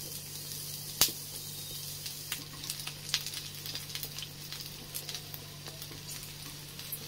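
Sliced onions sizzling in a little hot oil in a non-stick kadhai as they start to brown. A steady hiss runs under a light crackle of small pops, with one sharper pop about a second in.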